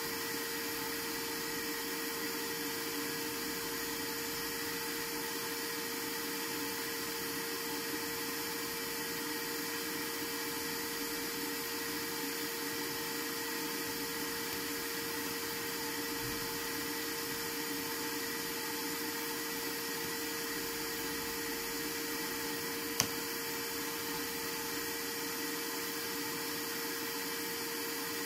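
Steady hum and hiss with a constant tone, like a small motor or fan running without change, and a single short click near the end.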